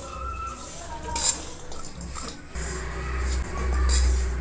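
Steel spatula scraping and clinking against a steel kadhai as solid lumps of jaggery are stirred with a little ghee to melt them, with a sharp clank about a second in. A low rumble rises in the second half.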